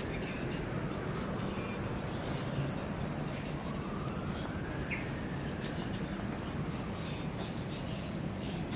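Insects, likely crickets, calling in a steady high-pitched drone, over a low background hum. A faint sound swells and fades midway.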